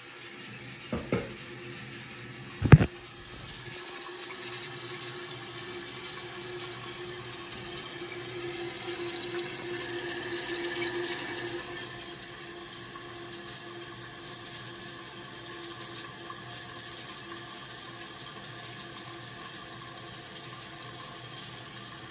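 Kohler Highline Class Five toilet tank refilling: water running in through the fill valve as a steady hiss, swelling for a few seconds near the middle, then stopping at the end. Two sharp knocks come in the first three seconds, the second louder.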